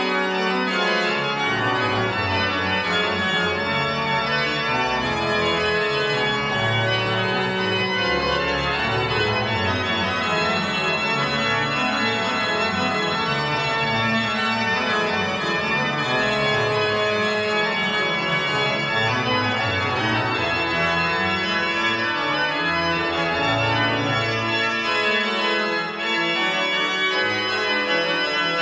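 The historic Holzhey pipe organ played loud, with many stops drawn, sustaining dense chords on the manuals. A bass line moves up and down in the pedals, with no break.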